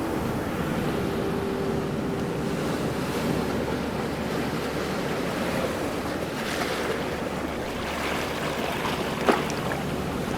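Ocean waves washing steadily, the surf swelling a little more about two-thirds of the way in, with a faint low hum underneath and one sharp click near the end.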